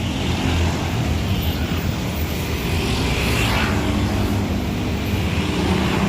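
Diesel engines of large coaches rumbling steadily as buses pull out of a terminal, with a short rush of hiss about three and a half seconds in.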